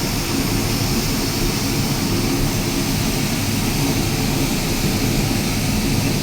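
Wood-gas fire burning hard in the furnace of a wood-charcoal retort kiln, a loud, steady rush with a deep low end and no change throughout.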